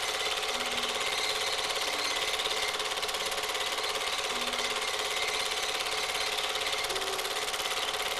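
Super 8 film projector running, a steady rapid mechanical clatter from its film transport that covers the film's soundtrack.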